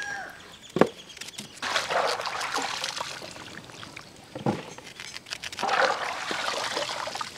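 Water splashing and trickling as trimmed round eggplants are handled in a metal basin of water, in two stretches, with two sharp knocks, the first about a second in and the second about four and a half seconds in.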